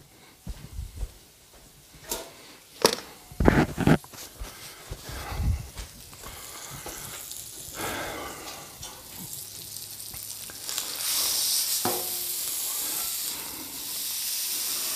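Ribeye steak sizzling as it sears on a Blackstone flat-top griddle, with a few sharp knocks in the first few seconds. The sizzle grows louder in the second half, as the steak is flipped onto its unseared side with a spatula.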